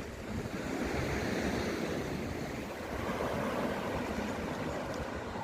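Black Sea surf washing onto the shore, a steady rush that swells about a second in, with wind rumbling on the microphone.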